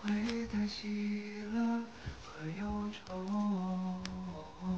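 Background music: a wordless humming vocal melody of slow, held notes, with a brief click about four seconds in.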